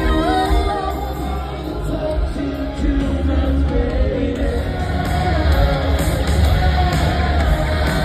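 Live rock band playing loudly in a stadium, with a singer's voice over guitars and drums, heard from far up in the stands.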